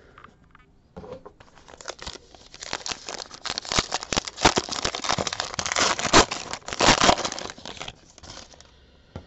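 Wrapper of a 2017 Diamond Kings baseball card pack being torn open and crinkled by hand: a run of crackling rips and crinkles that starts about a second in, is loudest in the middle, and dies away near the end.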